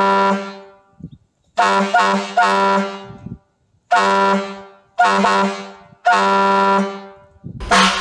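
Grover model 1702 air horn from a BART A2 car, run on shop air, sounding a series of short blasts on one steady note: three quick toots about two seconds in, then single and double blasts, each cut off and fading away.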